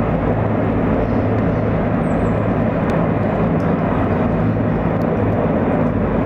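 A large formation of helicopters flying over, heard as one loud, steady drone of many rotors and engines blended together.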